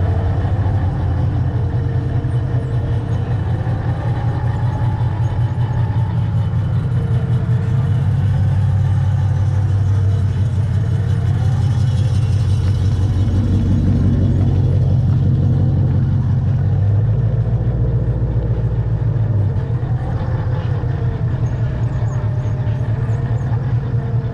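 Radio-controlled car driving across asphalt, its motor and tyres heard close up from the camera mounted on it. The rumble is steady, with a whine that wavers up and down and a change in the low rumble about two-thirds of the way through.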